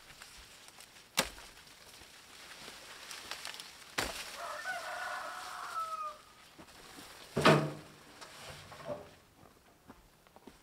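Corn stalks being cut by hand with a blade: a few sharp chops, the loudest about seven and a half seconds in, with rustling of the stalks. A rooster crows once, a single held call of about a second and a half, beginning about four and a half seconds in.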